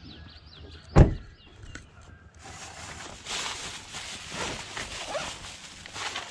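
A single heavy thump about a second in, then a steady hiss with faint scattered ticks.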